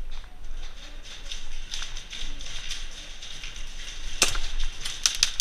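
Quick irregular taps of footsteps and gear as an airsoft player moves through a concrete stairwell. From about four seconds in come sharp cracks of airsoft gunfire, one and then several in quick succession near the end.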